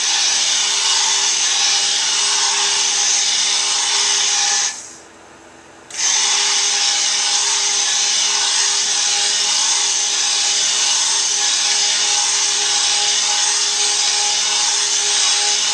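Oster stick blender running, its blade head down in a stainless steel pot of cold-process soap batter that has already reached trace. It is switched off for about a second around five seconds in, then starts again.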